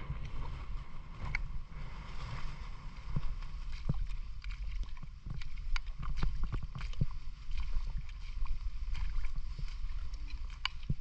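Water sloshing and splashing with scattered sharp knocks and clicks over a steady low rumble on the microphone, the sounds of wading and working through wet mud and water.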